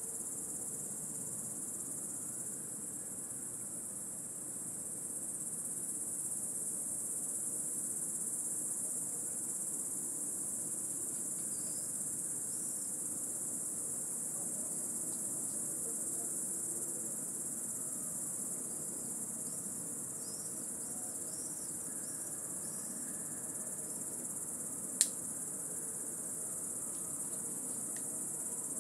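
A dense cicada chorus: one steady, high-pitched drone that never lets up. Faint short chirps come and go midway, and a single sharp click stands out near the end.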